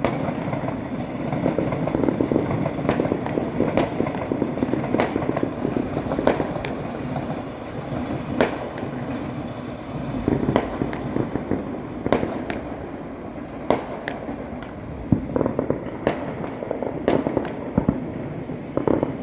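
Fireworks going off all around: a dense run of crackling and bangs for the first several seconds, then separate sharp bangs every second or so.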